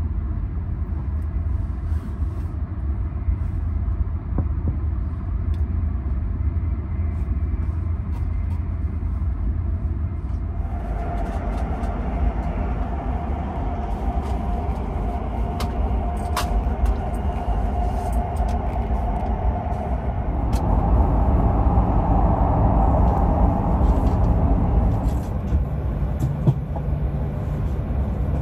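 CRH2E high-speed electric multiple unit running, heard from inside the sleeper berth as a steady low rumble. About eleven seconds in, a higher hum joins it, grows louder around twenty seconds in, and fades again near the end.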